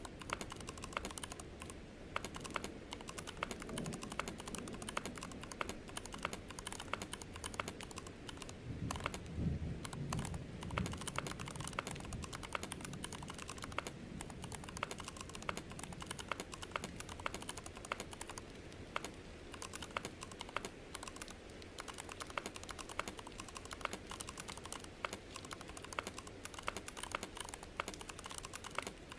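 Computer keyboard typed on rapidly and without pause: a dense, continuous stream of key clicks, several a second.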